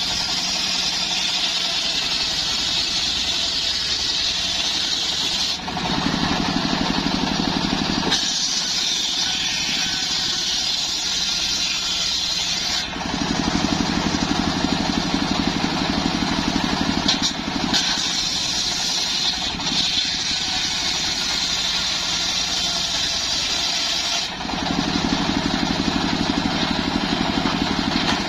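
Homemade circular sawmill's large blade ripping logs lengthwise, with the motor driving it running continuously. The sound shifts in pitch and loudness every few seconds as the blade goes into and comes out of the wood on successive passes.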